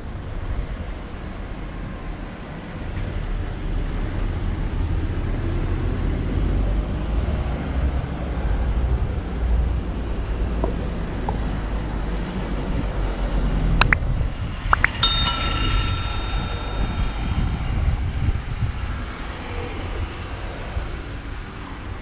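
Outdoor ambience: a steady low rumble, then a sharp click about fourteen seconds in, followed by a bell-like metallic ring of a few clear tones that fades over about two seconds.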